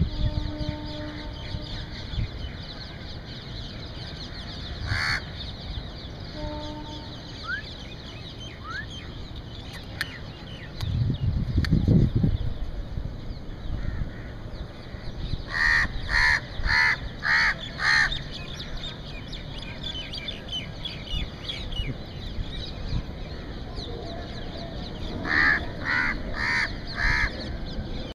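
Crow cawing: a run of five caws about half a second apart past the middle, then four more near the end, over steady outdoor hiss. A low rumble about eleven to twelve seconds in is the loudest sound.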